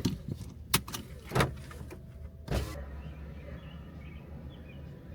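A few sharp clicks and knocks inside a car, the longest about two and a half seconds in, then a steady low rumble.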